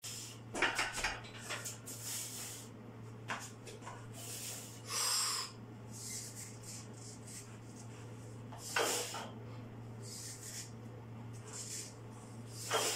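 A set of barbell box front squats with about 100 kg: short, sharp breaths and a few knocks and rubs from the bar, harness and box as the lifter sits and stands. A steady low hum runs underneath.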